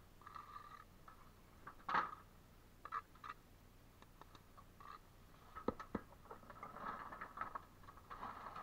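Bricklayer's trowel scraping mortar along brick joints, with several sharp taps and knocks of trowel and bricks; the loudest knock comes about two seconds in.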